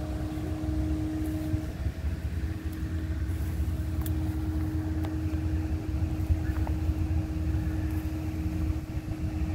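Motor vehicle engine running steadily at idle: a low rumble with a constant tone over it that drops out briefly about two seconds in.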